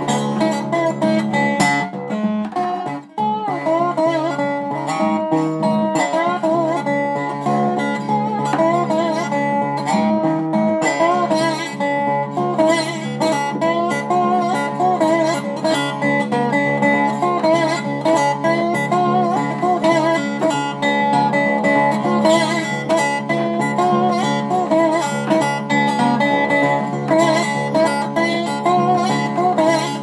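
Fingerpicked slide playing on a small resonator guitar in an old-time blues style, notes gliding and wavering in pitch over a steady bass, with a brief break about three seconds in.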